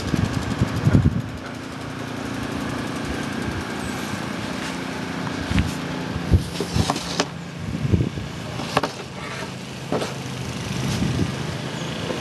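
An engine running at a steady speed, with a few short sharp clicks over it.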